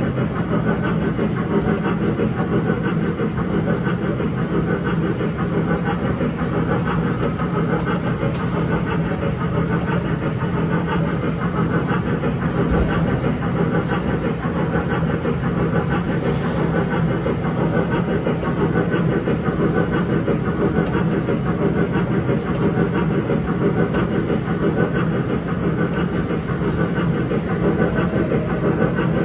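Steady, even running noise of an electric mall train, heard from on board.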